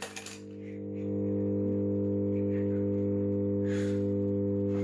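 Microwave oven transformer humming steadily on mains power, coming back up to full level over the first second after a high-voltage discharge bang, with a brief crackle at the start and a short hiss near the end.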